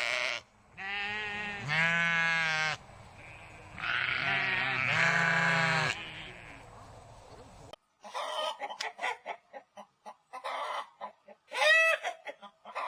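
Three long, wavering bleats. After a sudden cut about two thirds of the way in, a chicken clucks in quick short notes, with one louder drawn-out cluck near the end.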